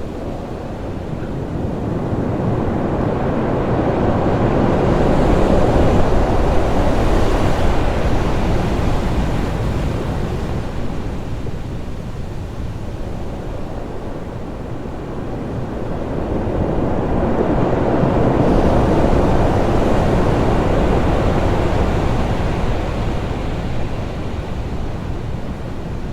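Loud ocean waves crashing on rocks: a continuous roar of surf that swells twice, about a quarter of the way in and again about two thirds of the way through, easing off between.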